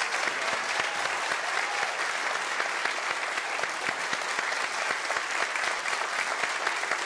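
Large audience applauding, a dense steady patter of many hands clapping.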